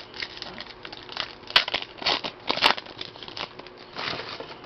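Foil wrapper of a trading-card pack crinkling and rustling as it is torn open and handled, with a few louder crackles.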